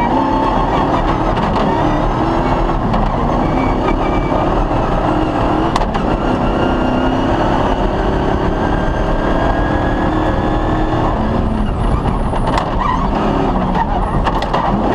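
Cross-country rally car driven hard on a stage: its engine runs under load, with the pitch rising and falling as the revs change, over a loud continuous rumble.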